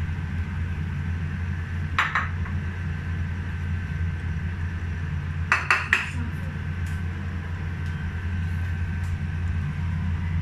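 A few clinks of utensils against a metal wok and bowls: one about two seconds in, then three quick ones close together a few seconds later, over a steady low hum.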